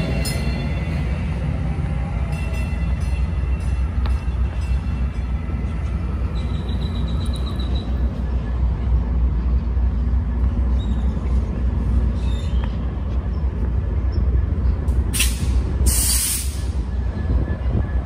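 Commuter train led by an EMD F59PH diesel locomotive pulling into the station, a steady low rumble of engine and wheels. Near the end come two short bursts of hiss, followed by a faint thin whine.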